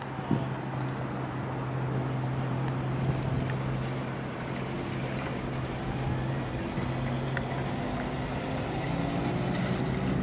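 An engine idling steadily with a low, even hum, and one short knock about a third of a second in.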